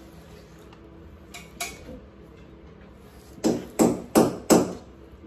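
Hammer striking at a wall: two light taps, then four hard blows in quick succession, about three a second, near the end.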